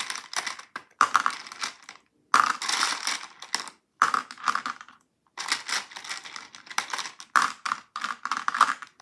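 Hard gumballs clattering against each other and a clear plastic ornament-half dome as they are picked from a plastic tub and dropped in, in about six bursts of rapid clicks with short pauses between them.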